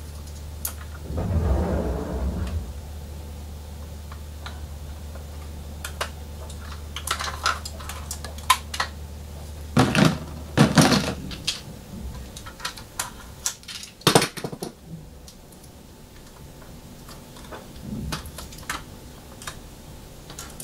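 Hands handling a die-cast metal toy car, a 1:24 Chevy K5 Blazer, picking at tape stuck on its door. A rustle about a second in, then scattered small clicks and taps, with a louder clatter around ten seconds in and a sharp knock about fourteen seconds in. A low steady hum stops about eleven seconds in.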